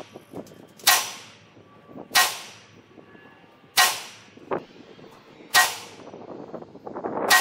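Five shots from a PTR-91 semi-automatic .308 (7.62x51) battle rifle fired one at a time, about one and a half to two seconds apart. Each is a sharp crack followed by a short echo dying away.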